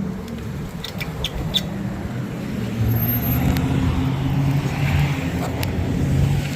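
Road traffic at an intersection: motor vehicle engines running and passing, with a few short clicks about a second in.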